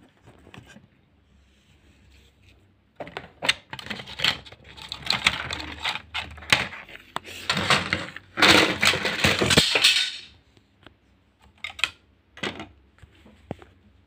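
Clattering and clicking of hard objects being handled, in a dense run over several seconds, loudest just past the middle, then a few lone clicks near the end.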